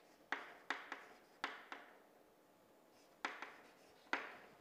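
Chalk strokes on a blackboard while writing: short, sharp taps and scratches in a quick group of about five, a pause of over a second, then three more.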